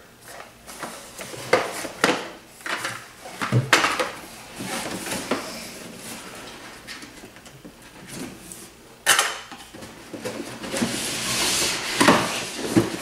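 Parts and packaging being handled during an unboxing: scattered knocks and clatters of plastic and cardboard, with a stretch of rustling near the end.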